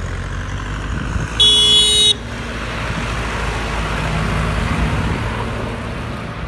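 A farm tractor's diesel engine drives past close, growing louder toward the middle and then easing off. A vehicle horn gives one loud blast of under a second about a second and a half in.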